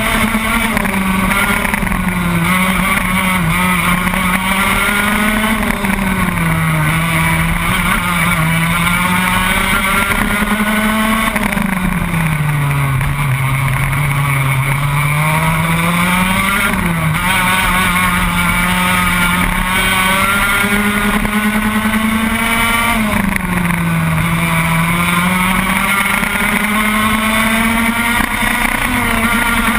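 Racing kart engine running hard, heard from a camera mounted on the kart. Its pitch drops and climbs again several times as the driver slows for corners and accelerates out, with the longest, deepest dip about halfway through.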